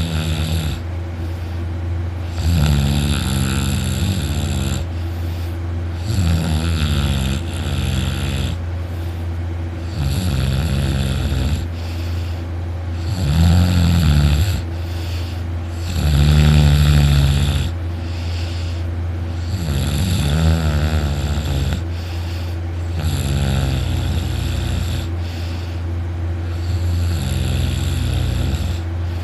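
Very loud snoring from a young man in deep sleep, one long snore about every three seconds.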